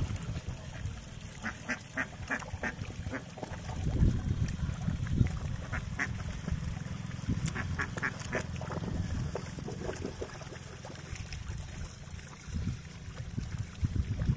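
Domestic ducks quacking in several runs of short calls, over a steady low rumble.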